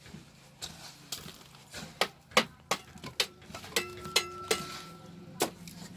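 A run of about a dozen sharp, irregular knocks and clinks. A few in the middle ring on briefly, like metal being struck.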